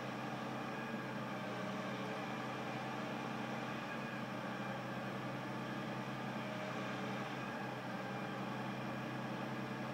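Steady machinery drone: an unbroken low hum made of several steady tones over a hiss. The uploader attributes it to construction or renovation work inside an office building.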